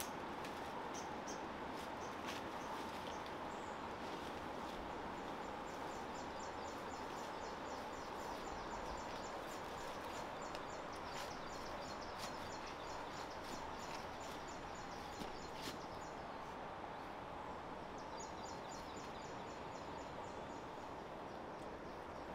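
Outdoor tropical forest ambience: a steady low hiss with a fast, high-pitched ticking call from a small animal, running for about ten seconds and then again more briefly near the end.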